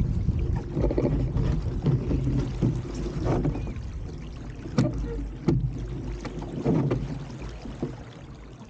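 Water splashing and slapping against an RS300 sailing dinghy's hull under way, with wind rumbling on the microphone and two sharp knocks around the middle; the noise eases off toward the end.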